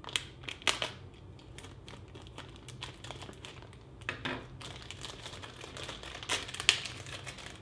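Packaging crinkling and rustling as a small accessory box is opened and its contents handled, with scattered clicks and taps. The handling gets louder briefly about four seconds in and again about six and a half seconds in.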